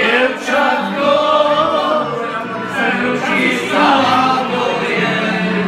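A group of people singing a song together in long, held notes, several voices at once.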